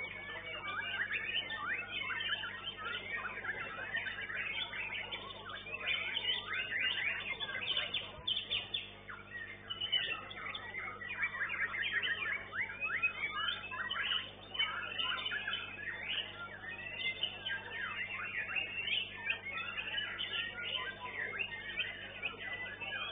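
White-rumped shama (murai batu) singing in a long, almost continuous stream of quick, varied chirping phrases, easing off briefly about nine and fourteen seconds in. Heard through a CCTV microphone, so the song sounds thin, with a faint steady hum beneath it.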